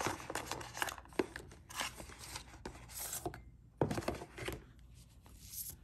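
Handling noises from unpacking: the cardboard box tray and its contents being moved and lifted away, a string of rustles, scrapes and light knocks, with a louder cluster about four seconds in.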